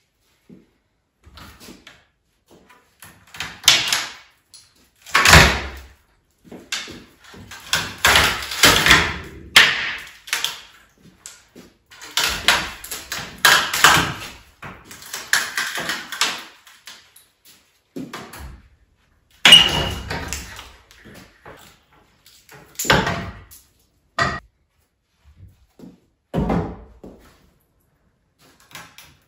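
Wooden wall studs being knocked and pulled loose by hand in a small room: irregular knocks and bangs of wood, with stretches of scraping and rubbing between them.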